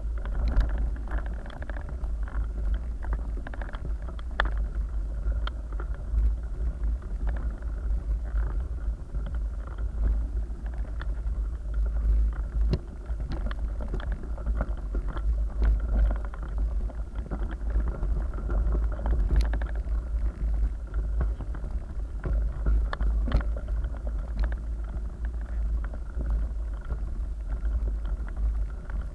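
Mountain bike riding over rough gravel and broken concrete: a constant low rumble of the shaken camera and wind on its microphone, with frequent irregular clicks and rattles from the tyres and bike over loose stones.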